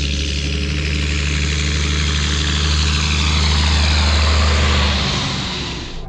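Ford TW-25 tractor's turbocharged six-cylinder diesel engine working hard as it drives up close, growing louder, then the engine note drops away about five seconds in as the tractor goes past.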